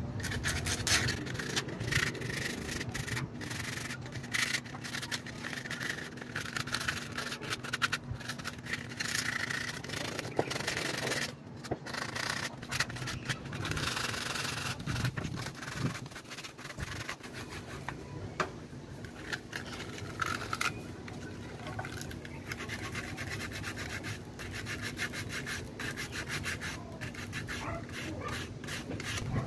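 Sandpaper rubbed by hand along the edges of jigsaw-cut plywood letters, in short, uneven back-and-forth scraping strokes, smoothing the rough cut edges.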